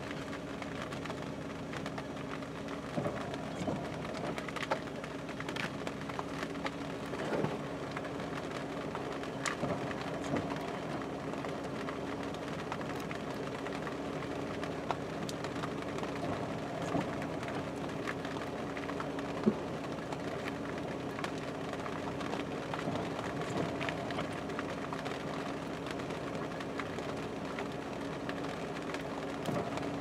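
Vehicle running, a steady hum with a constant drone, with a few small clicks scattered through.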